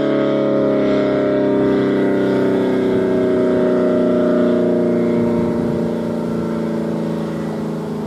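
ACA Allertor 125 rotating outdoor warning siren sounding a steady tone, the Alert signal of its test cycle, with no rise and fall in pitch. It gets a little fainter after about five and a half seconds as the rotating horn turns away.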